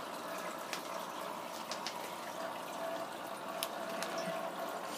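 Steady trickle and splash of running aquarium water, with scattered small taps and clicks.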